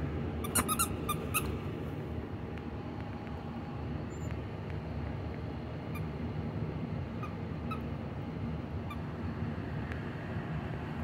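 Squeaky dog toys squeaked by playing puppies: a quick run of about five short, shrill squeaks in the first second and a half, then a few fainter single squeaks later on. A steady low background noise runs under them.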